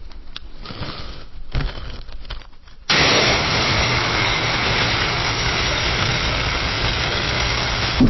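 Fireplace fire crackling with scattered small pops, then about three seconds in a loud, steady rushing noise of flame cuts in abruptly and holds to the end.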